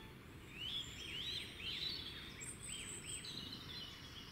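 Several birds chirping in quick notes that rise and fall, coming thickest through the middle, over a faint steady outdoor hiss.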